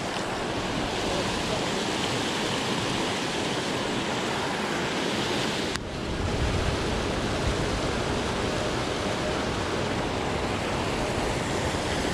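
Water rushing steadily over a low concrete dam spillway, with a brief drop in level about six seconds in.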